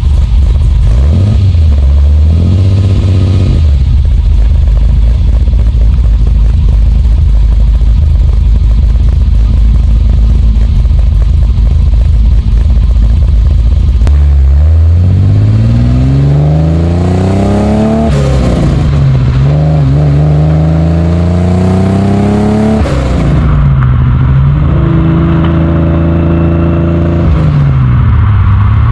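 Alfa Romeo GTV6's built 3.0-litre V6, recorded up close by a camera mounted on the car: a short rev about a second in, then a steady low rumble for about ten seconds. It then pulls up through the revs twice with a drop between, as at a gear change, falls back, holds steady briefly and eases off near the end.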